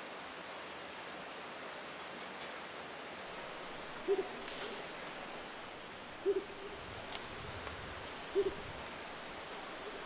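Rufous motmot giving low, owl-like hoots: three short calls about two seconds apart. Faint high chirping runs in the background.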